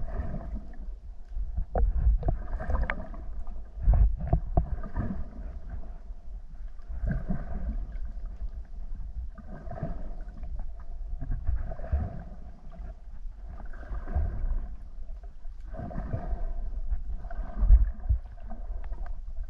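Muffled underwater noise of a diver moving through the sea: a steady low rumble with a few knocks early on, and a rasping swell that comes back about every two seconds.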